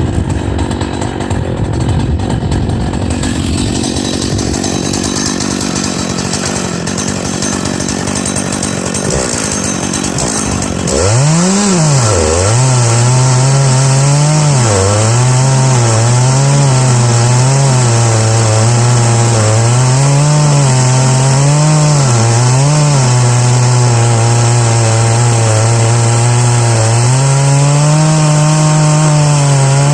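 Big-bore chainsaw on a chainsaw mill ripping through an oak log, the engine held under load with its pitch wavering up and down as it cuts. About eleven seconds in the sound changes abruptly and the engine note becomes louder and clearer.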